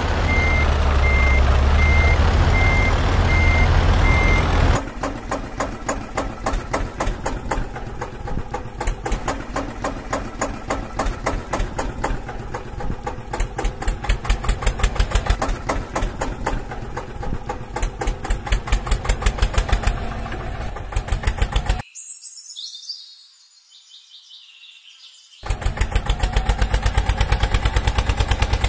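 Vehicle engine sounds for a truck and tractor: a low rumble under an on-off beeping tone for the first few seconds, then a long run of fast, even engine pulses. The pulses drop out briefly about three-quarters through, then resume.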